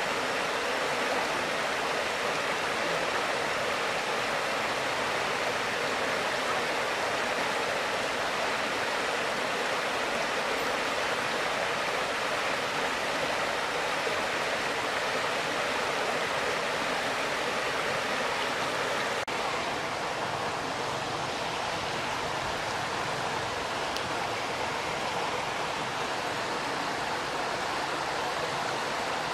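Waterfall: a steady rush of falling water. A short click about two-thirds of the way in, after which the rush is slightly quieter.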